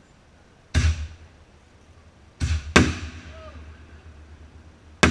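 Fireworks going off: four sharp bangs, each with an echoing tail. One comes under a second in, a louder pair about half a second apart comes near the middle, and the last comes at the very end.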